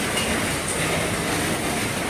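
Heavy rain falling on an RV roof: a dense, steady hiss with faint scattered drop ticks.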